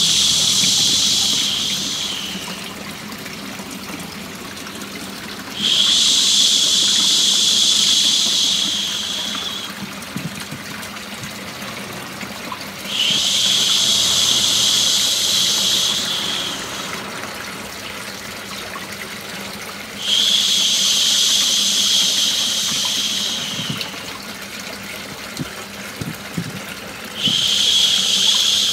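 A long, soothing human 'shhh' shush, the kind used to lull a baby to sleep, repeated about every seven seconds, each lasting three to four seconds, over the steady sound of running water used as white noise.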